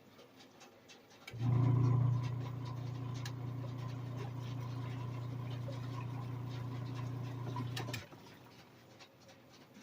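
Costway twin tub washing machine's wash motor humming as it turns the pulsator in the wash tub, starting about a second in, louder for its first moment, then steady, and cutting off about eight seconds in: one stroke of the wash cycle's agitation.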